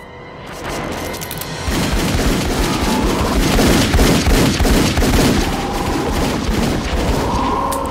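Rapid, sustained pistol gunfire, shot after shot in quick succession. It builds up early, gets louder about a second and a half in, and cuts off abruptly at the end.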